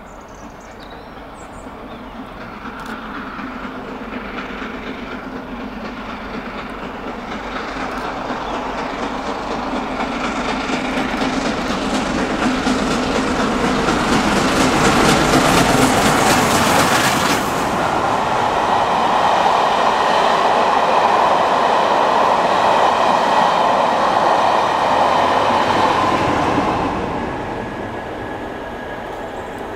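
A steam-hauled passenger train approaching and passing. Its rapid, rhythmic working beats grow louder to a peak about 17 seconds in; the coaches then roll by with a steady rumble of wheels on the rails that drops away a few seconds before the end.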